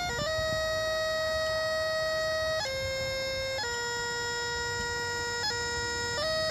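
Highland bagpipes playing a slow melody: long held notes, each change of note broken by quick grace notes.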